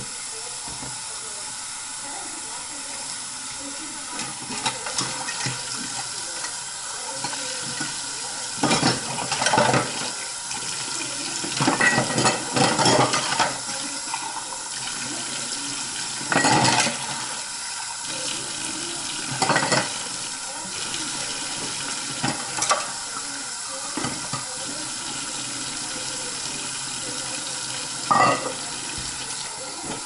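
Kitchen faucet running steadily into a sink during hand dishwashing, with glasses, a mug and plastic containers knocking and clinking against each other and the sink about half a dozen times.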